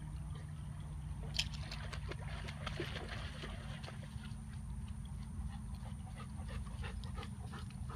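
Large Munsterlander splashing out of a pond and pushing through tall wet grass with a training bumper in its mouth. There is a sharp splash about a second and a half in, then scattered rustling, over a steady low rumble.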